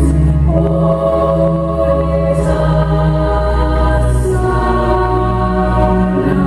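Slow music of long held, chant-like notes over a deep steady bass drone, the chord shifting every couple of seconds.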